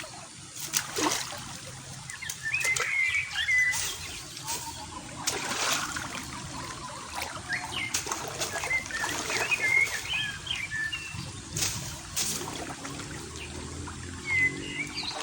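Water splashing and trickling in short, uneven bursts as hands work in shallow water, with small birds chirping in brief phrases several times.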